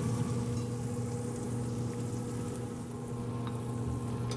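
Yoder YS640 pellet cooker running, a steady electric hum from its fan with a faint hiss.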